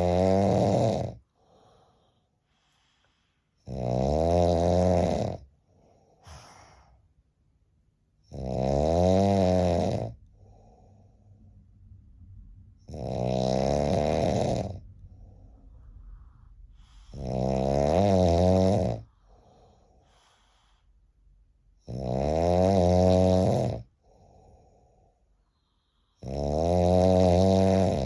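A person snoring loudly with a sawing, rattling snore: seven long snores, each about two seconds, coming about every four and a half seconds, with faint breathing between them.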